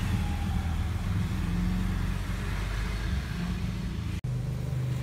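Steady low motor hum, with a momentary break about four seconds in.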